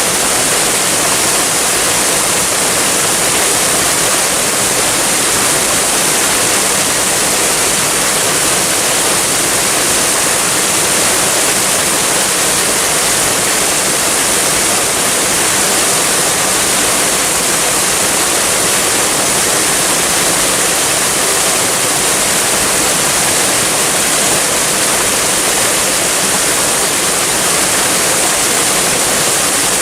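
Waterfall: water falling and splashing in a steady, dense rush with a bright hiss, unchanging throughout.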